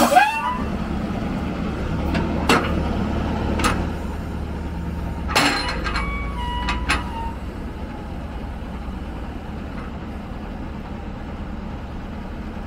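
Wheeled excavator's diesel engine running steadily as the machine backs away, with a few short, sharp noises in the first six seconds. The engine grows quieter after about seven seconds.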